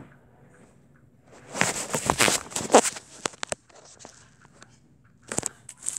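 Plastic candy wrapper crinkling as it is handled, in a dense burst of crackles for about two seconds starting around a second and a half in, then a short rustle near the end.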